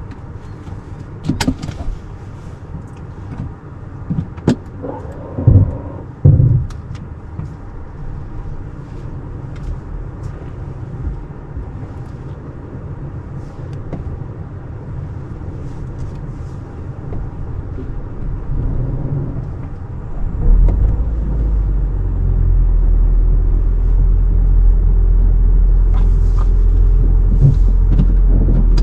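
Inside the cabin of a Toyota Corolla hybrid hatch: a few knocks and clunks in the first seconds, then about twenty seconds in a steady low rumble of the car under way starts and holds.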